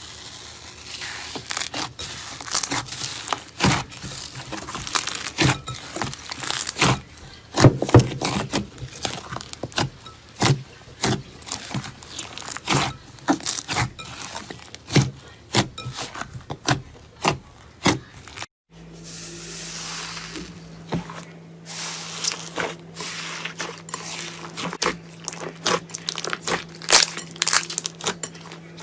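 Slime being squeezed and pressed in the hands, giving dense crackling and popping. A sudden break about two-thirds of the way through, after which the crackling resumes over a steady low hum.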